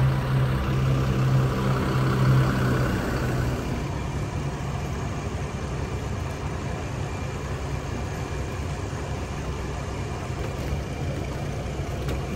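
Bus diesel engine idling, loudest with a strong steady hum for the first three seconds or so, then running on more quietly and evenly.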